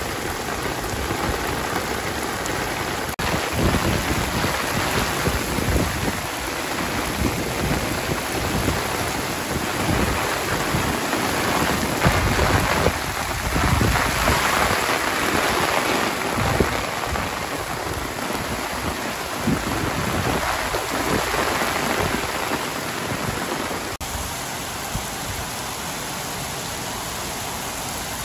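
Heavy thunderstorm rain falling on a brick-paved street, a steady loud hiss that swells through the middle and settles a little lower near the end.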